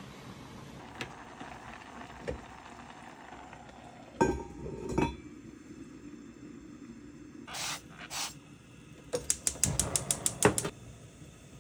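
Kitchen utensils and cookware clinking and knocking while food is prepared. Two knocks come a few seconds in, then two short rasps, then a quick run of about a dozen clicks near the end.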